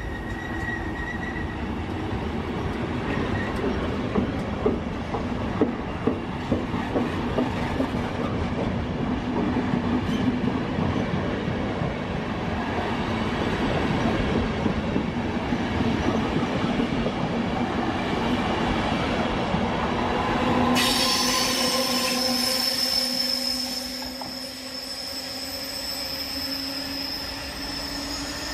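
Trenord passenger coaches rolling past with a steady rumble, the wheels clacking over rail joints a few seconds in. About 21 seconds in it changes to an E.464 electric locomotive's train coming round a curve, its wheels squealing in several steady high tones.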